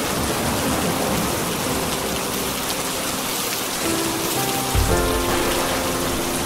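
Steady rain falling on a surface, with soft music of long held notes underneath. A short low rumble comes about five seconds in.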